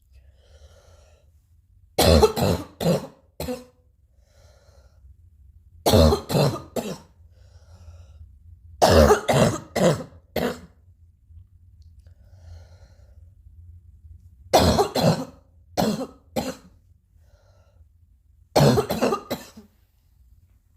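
Repeated fits of coughing: five bouts of three to five quick, harsh coughs each, a few seconds apart, with faint breathing sounds in between.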